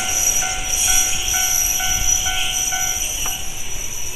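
Railway level-crossing warning bell, the standard electronic tone, ringing about twice a second and stopping with a click about three seconds in, over the noise of a train going by that slowly fades.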